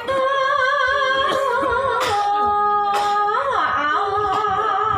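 A woman singing long held notes with wide vibrato into a microphone, sinden-style Javanese singing over a PA. It includes one straight held note, a short slide in pitch, and a few sharp knocks.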